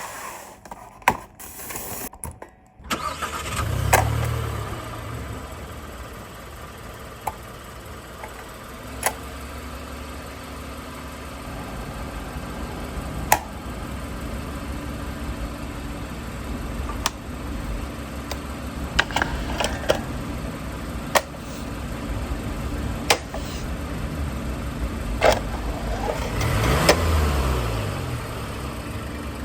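Car engine starting about four seconds in and idling steadily, with a swell like a rev near the end, under a scatter of sharp clicks.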